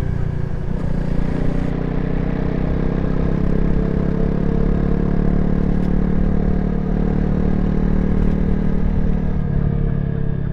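Honda CRF300L's single-cylinder four-stroke engine running steadily while riding at a constant road speed.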